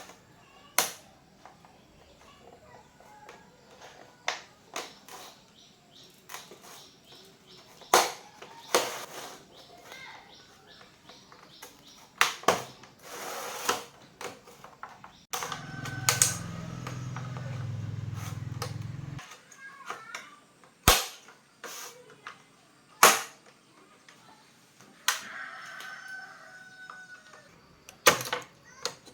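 Scattered sharp clicks and knocks of hands working with tools and parts on a bench, with a low steady hum for about four seconds midway.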